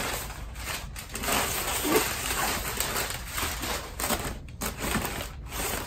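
A cardboard shipping box and its packing material being handled and opened, with irregular rustling, crinkling and scraping.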